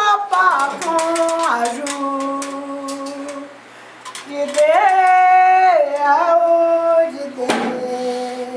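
A woman singing a Candomblé chant solo, holding long notes that step up and down in pitch, with a short break about four seconds in before a loud held phrase.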